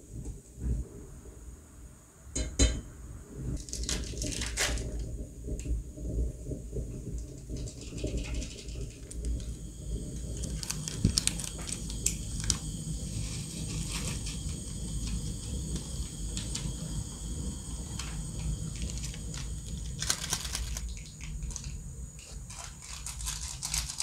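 A metal utensil clinks against a stainless steel pot as instant noodles are stirred in boiling water, with a few sharp clicks in the first seconds. Later come the crinkle and rustle of plastic seasoning sachets being torn and squeezed out over the pot.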